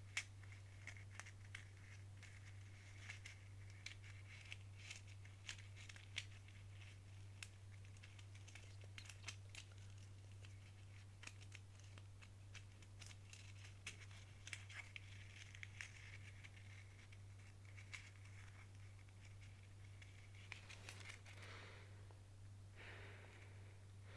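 Faint, irregular soft clicks and crackles recorded very close to a sensitive ASMR microphone, over a low steady hum, with two longer soft swishes near the end.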